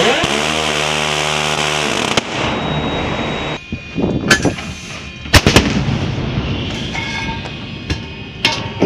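A steady droning hum for about the first two seconds, then the ship's 5-inch naval gun firing: several sharp, booming reports. The loudest comes about halfway through, with others around four seconds in and near the end.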